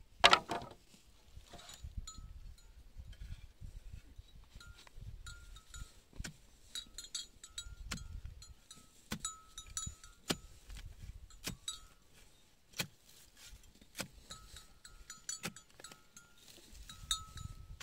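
Cowbells clanking on and off, with about a dozen sharp knocks scattered through and a low rumble of wind on the microphone.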